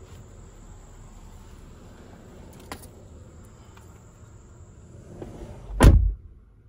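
Steady high-pitched insect trilling, with a sharp click near the middle and one loud, heavy thump near the end.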